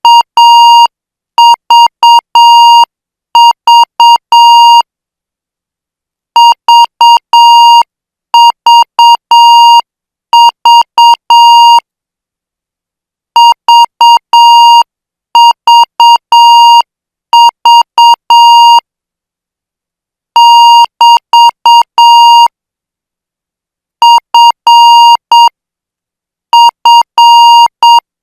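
Morse code practice tones: a single steady beep near 1 kHz keyed into dots and dashes, sent as separate letters at a slow 8 words per minute. Each letter is followed by a clear pause.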